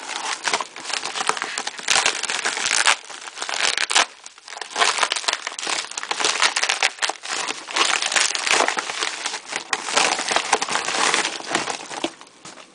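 Plastic bubble-padded mailer crinkling and rustling as it is handled and opened, with a brief lull about four seconds in.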